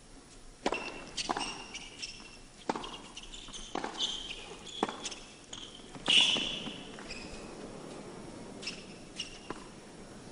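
Tennis ball struck back and forth by racquets about once a second, starting with a serve, with shoes squeaking on the court; the loudest hit comes about six seconds in, and a few fainter ticks follow.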